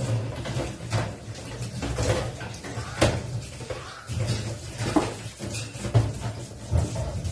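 Household items being handled: irregular knocks, clinks and clatter, like dishes and cupboard doors being moved about while tidying.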